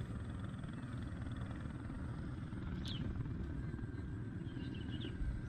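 Steady low outdoor rumble, with a few brief, falling high chirps about three seconds in and again near the end.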